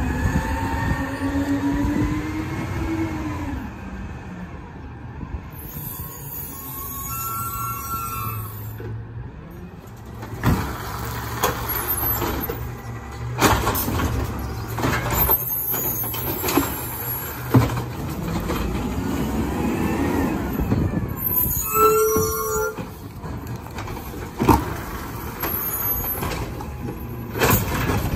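Natural-gas Peterbilt 320 garbage truck with an Amrep automated side-loader arm working: the engine rises and falls in pitch as it powers the hydraulics, the air brakes hiss and squeal twice, and a recycling cart knocks and bangs several times as the arm lifts it and shakes it out into the hopper.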